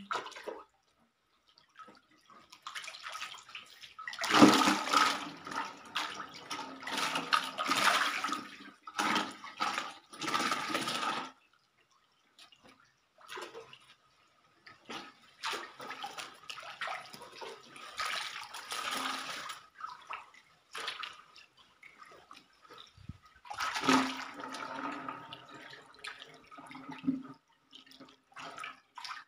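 Fish thrashing in shallow muddy water, splashing in bursts of several seconds with quiet gaps between, loudest about four to eleven seconds in and again about twenty-four seconds in.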